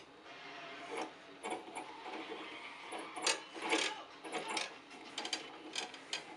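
Irregular sliding, rubbing and clicking from a ball-and-beam control rig: the setpoint slider is pushed by hand along its steel guide rod while the steel ball rolls along its twin rods. The strokes come unevenly and are loudest in the middle.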